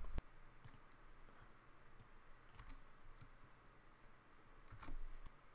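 Several faint, scattered clicks of a computer mouse and keyboard being worked, over a low room hiss.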